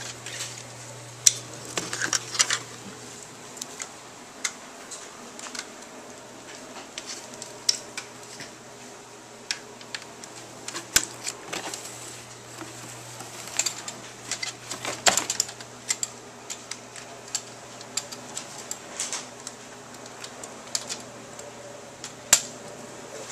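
Plastic toy race-track pieces clicking and clattering as they are handled and snapped together: irregular sharp clicks and knocks, some louder than others.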